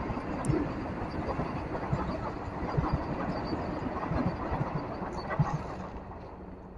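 Vande Bharat Express electric multiple-unit train passing close by, its rumble broken by irregular knocks of the wheels over the rail. The sound fades away near the end as the last coach goes by.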